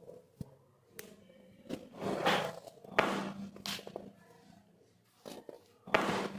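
Rustling and handling noise with several sharp clicks and soft thuds, the loudest click about three seconds in.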